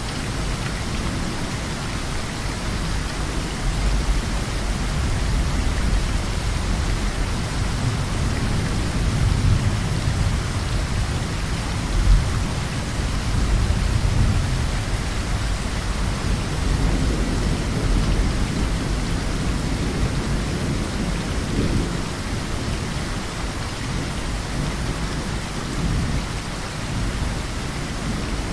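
Heavy rain falling steadily under rolling thunder that swells and fades in long low rumbles, with one sudden louder clap near the middle.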